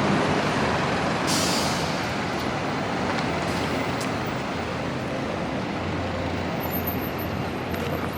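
City street traffic: a steady rumble of heavy vehicles such as buses or trucks, with two short hisses about one and a half and three and a half seconds in.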